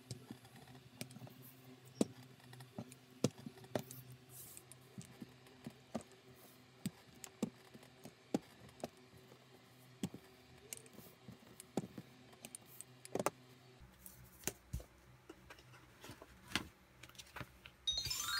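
Irregular light clicks and taps of a small metal hand roller pressed and rolled along a leather strap on a cutting mat. A short chime of music begins near the end.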